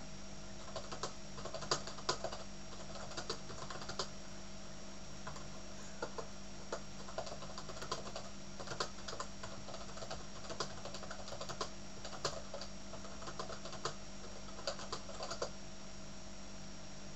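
Keys being typed on a computer keyboard: slow, irregular clicks, a few a second, that stop a little before the end. A steady faint hum runs underneath.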